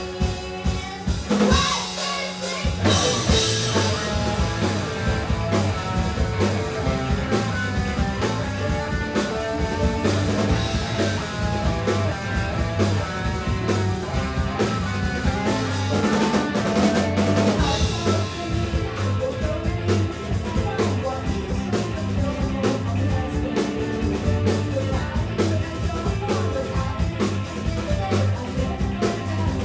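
Live rock band playing a J-pop rock song: drum kit, electric guitars and bass guitar. About two seconds in, the low end drops out briefly under a cymbal crash, then the full band comes back in.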